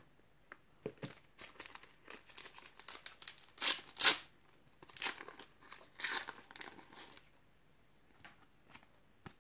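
Foil booster pack of Panini Adrenalyn XL trading cards being torn open and crinkled, with the loudest rustles about four and six seconds in. The rustling stops for the last couple of seconds.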